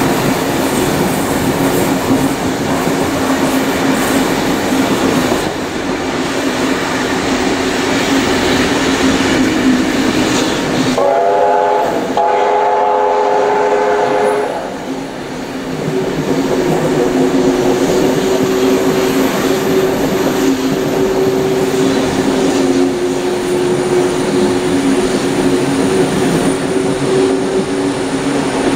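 Steady running noise of a train of carriages hauled by NSW C38 class steam locomotive 3801, heard from an open carriage window. About 11 seconds in the locomotive's steam whistle sounds twice, a short note and then a longer one of several pitches together, and in the second half a steady squeal from the wheels runs through the curve.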